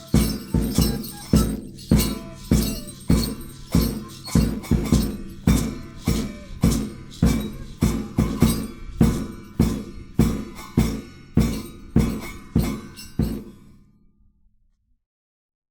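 Andean folk music with a steady percussion beat, about two sharp strikes a second with some jingling over lower held tones; the music fades and stops near the end.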